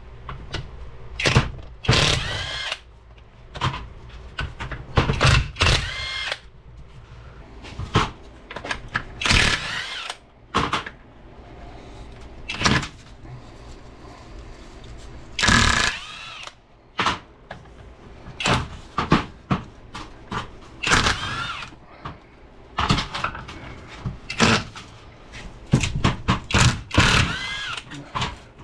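Bolts coming out of the cast-iron NP205 transfer case housing with a 9/16 socket: repeated short bursts of a power tool, spaced irregularly, with metallic clinks and ringing between them.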